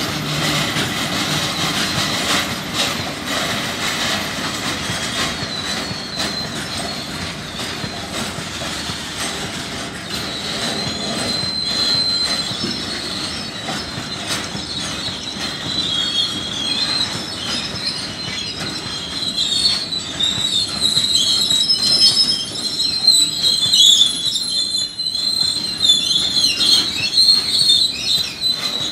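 Covered goods wagons of a freight train rolling past, their wheels clicking over the rail joints. A high, wavering wheel squeal comes in about ten seconds in and grows louder in the second half.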